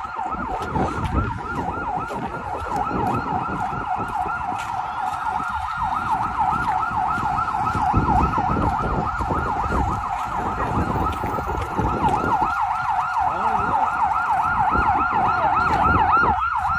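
Emergency-vehicle siren in a fast yelp, sweeping quickly up and down in pitch about four times a second, over a low rumble of traffic.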